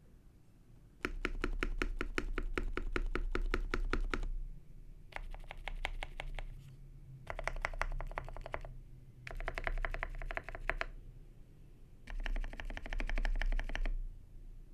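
Fast typing on a mechanical keyboard, which the uploader takes for some Mode Eighty. There are five bursts of rapid keystrokes, each one to three seconds long, with short pauses between them and a low thud under the clicks.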